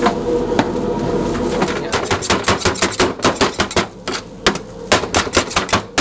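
A knife chopping on a cutting board in a shawarma kitchen: a few single knocks at first, then from about two seconds in a fast run of sharp strikes, several a second, over a low steady kitchen hum.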